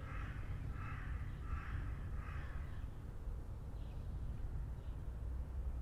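A bird calling about four times in quick succession in the first three seconds, over a steady low city rumble.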